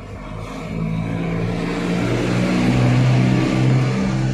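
A motor vehicle engine running and growing louder, its pitch shifting up and down as it revs, then cutting off suddenly near the end.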